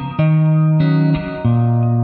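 Instrumental indie rock passage: electric guitar and bass guitar playing sustained notes that change pitch about every half second, with no singing.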